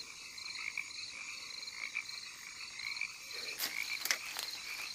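Night chorus of rainforest frogs: rapid, pulsed calls repeating steadily at a couple of pitches, with a few short clicks about three and a half to four seconds in.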